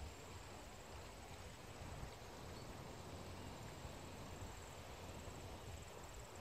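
Faint outdoor ambience: a thin, high, pulsing insect trill, like crickets, over a low steady rumble.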